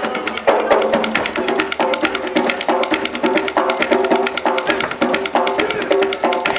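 Music accompanying a traditional Banten dance: fast, busy percussion clicks over a repeating pattern of pitched notes.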